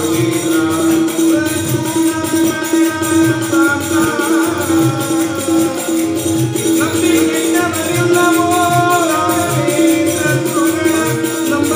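Devotional bhajan music: harmonium with a sustained drone, a sung melody, a barrel drum beating a steady rhythm, and a metallic jingling keeping time.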